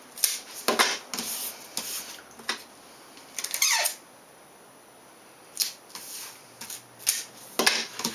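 Tape being pulled off a handheld tape dispenser and laid along a foam wing panel, in short ripping bursts. The longest rip, just before the four-second mark, has a falling squeal. After a short pause come a few more rips and taps as the tape is torn off and pressed down.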